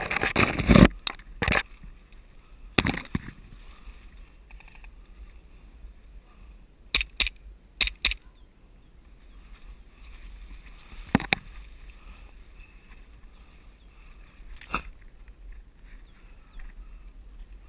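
Scattered sharp cracks and knocks: a cluster right at the start, then singles and two quick pairs spread through the rest, over a steady low rumble.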